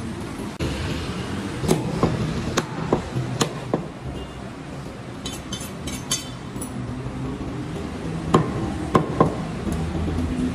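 Heavy cleaver chopping through a rack of goat ribs on a wooden chopping block: about nine sharp, uneven chops, with a quick run of light high clinks a little past the middle.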